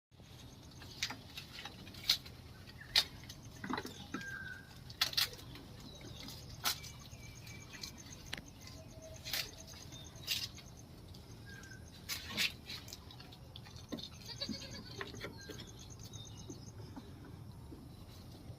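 Goats making occasional short bleats, over scattered sharp clicks and knocks that are louder than the calls.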